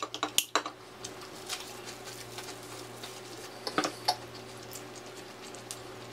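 Sharp clicks of a small aluminium soda can's pull tab just after the can is cracked open, then a few light crinkles of plastic wrap about four seconds in as a wrapped burger is picked up, over a steady low hum.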